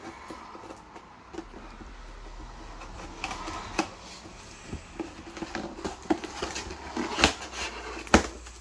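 A mail package being opened and handled by hand: irregular rustling and crinkling with scattered small clicks and taps, getting busier after a few seconds.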